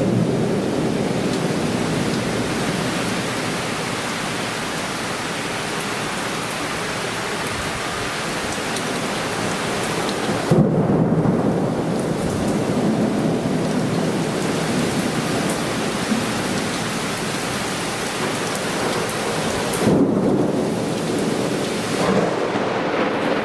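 Heavy downpour of a sudden summer cloudburst, rain hissing steadily, with rolls of thunder rumbling in at the start, about ten seconds in and again about twenty seconds in.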